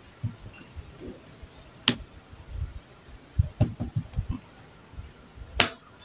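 Plastic snap-fit clips of a laptop's bottom cover clicking loose as it is pried off by hand: two sharp clicks, about two seconds in and near the end, with dull handling thumps between them.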